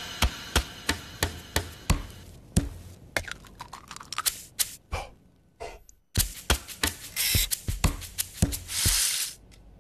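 A quick series of sharp kitchen knocks and taps, about three a second, like food being chopped, with a short break about six seconds in.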